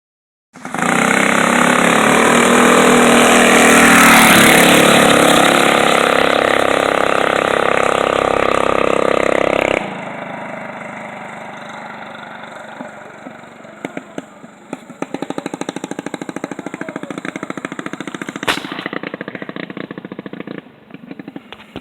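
Small mini bike engines revving hard and pulling away in a drag race, loud for about ten seconds. The sound then drops abruptly and the engine fades, its rapid firing pulses still audible, with a sharp click near the end.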